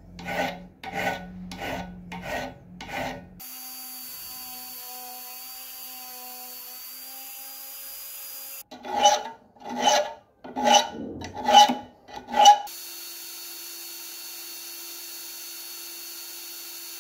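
Hand filing on a metal padlock key: rasping back-and-forth strokes, about two a second. A run of strokes at the start, a pause with a faint steady hum, and then five more strokes about nine seconds in.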